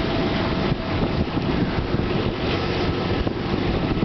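Steady rush of wind and low rumble aboard a sailboat under way, with wind buffeting the microphone.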